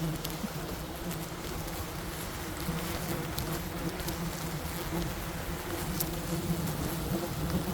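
A swarm of wild bees buzzing steadily, a dense low drone, with a few faint clicks over it.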